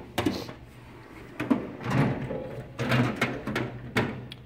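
Metal tool chest drawers sliding and knocking, with tools rattling, in several short bouts.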